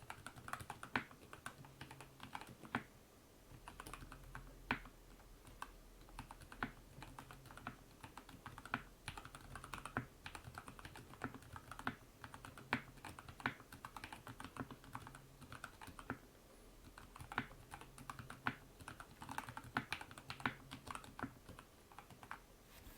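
Typing on a modded Akko 3098 Matcha Red Bean mechanical keyboard with prelubed Gateron Yellow switches, foam dampening and tuned stabilizers: an irregular run of keystroke clacks, with a couple of brief pauses.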